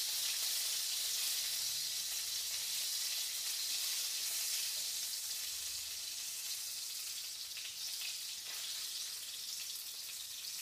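Flour-coated chicken breast pieces shallow-frying in oil in a frying pan: a steady, even sizzle, easing slightly toward the end.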